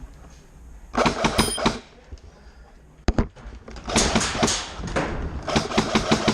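Airsoft guns firing in several rapid bursts of shots, with two sharp cracks about three seconds in and an evenly spaced run of shots near the end.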